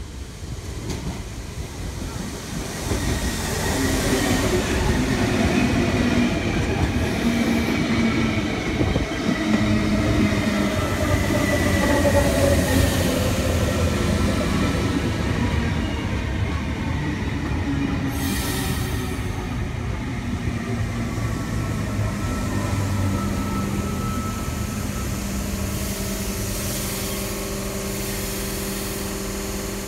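Eight-car V-set double-deck electric intercity train running into the platform and slowing to a stop, wheels rumbling on the rails under a whine that falls in pitch as it brakes. There is a brief hiss about 18 seconds in, and a steadier hum near the end as it draws up.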